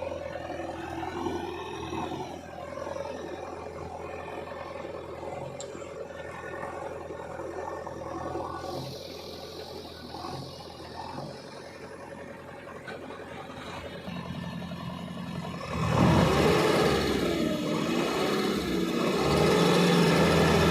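Heavy diesel machinery engine running steadily, then about sixteen seconds in revving up louder, its pitch wavering up and down.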